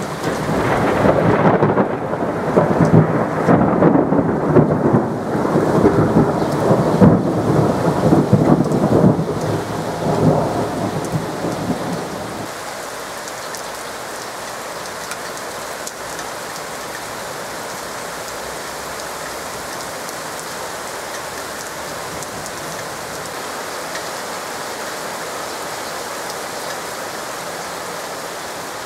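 A long roll of thunder, crackling and rumbling for about twelve seconds before it dies away, over heavy rain. After that, only the steady hiss of the downpour.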